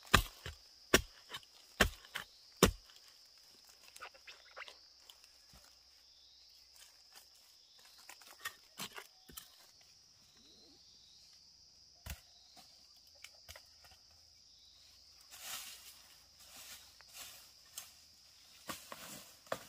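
Four sharp chopping strokes, a blade cutting into bamboo shoots, fall about a second apart near the start. Scattered lighter knocks and rustling follow, over a steady high-pitched insect drone.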